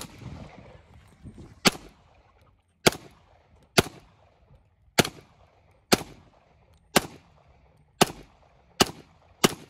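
Semi-automatic pistol fired ten times at a steady pace of about one shot a second, the last few a little quicker; each shot is a sharp crack with a short fading tail.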